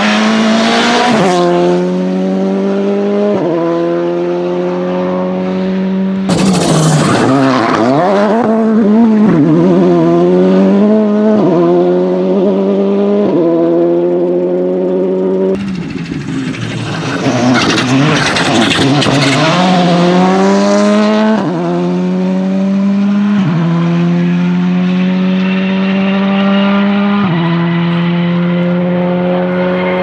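VW Polo GTI R5 rally cars' turbocharged 1.6-litre four-cylinder engines accelerating hard. Engine pitch climbs through each gear and drops sharply at every upshift. Twice the sound turns harsh and noisy for a few seconds, about six and sixteen seconds in, as a car goes by flat out.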